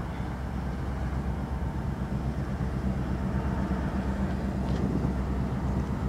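Engine running steadily at idle: an even, low hum that holds throughout.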